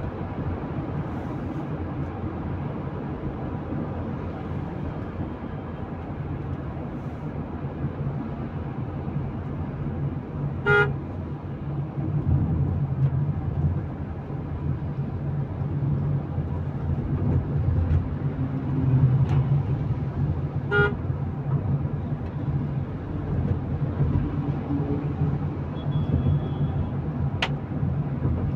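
Steady road and engine noise inside a Tata Punch's cabin at highway speed, with two brief vehicle-horn toots about ten seconds apart.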